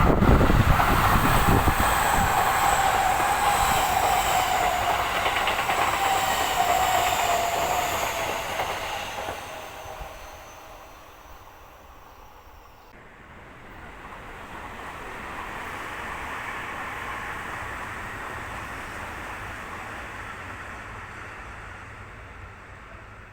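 Electric commuter train on the Seibu Ikebukuro Line passing close and pulling away, wheels clattering on the rails and its motor whine falling in pitch as it recedes, dying away after about ten seconds. A quieter rumble then swells and fades.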